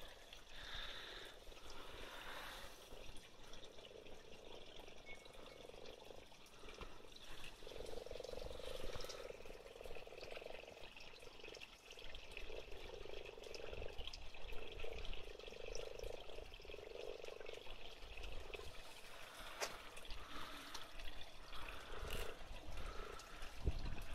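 Frogs croaking in a pond during mating, with a run of repeated low croaks in the middle, each about half a second to a second long. Water trickles underneath.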